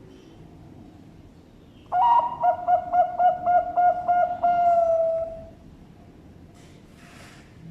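Zebra dove (Bangkok perkutut) cooing one song phrase: a quick run of about eight repeated notes, then a long drawn-out final note.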